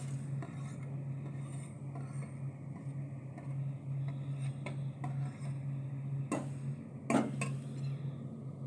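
Steel spoon scraping and tapping grated carrot off a plate into an aluminium pot: scattered light clicks, with two louder knocks about six and seven seconds in. A steady low hum runs underneath.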